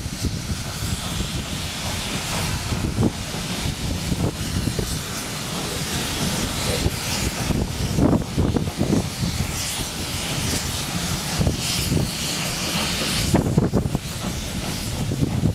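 Steam-hauled train on the move: the locomotive ahead hissing and working, with the wagons clattering over the rails in uneven knocks.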